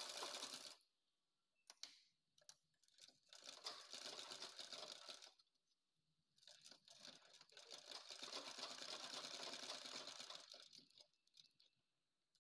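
Flat-bed sewing machine stitching a leather sandal upper: fast, even needle clicking in three runs, a brief one at the start, one of about two seconds, then a longer one of about four seconds, with short pauses between them as the piece is turned.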